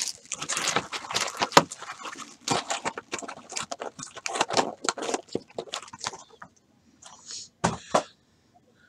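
Trading cards being handled on a table: a quick run of card clicks and rustles that stops about six seconds in, then two short knocks near the end as stacks are set down.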